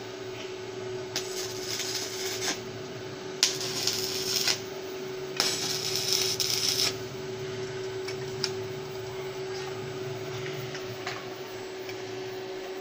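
Stick-welding arc from a 6013 electrode on 14-gauge steel tube, crackling and sizzling in three short tack welds, each about a second long. After the third, the arc stops and only a steady hum is left.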